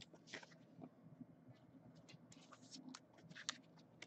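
Faint rustling and scraping of trading cards and plastic card sleeves being handled, in a few short soft strokes.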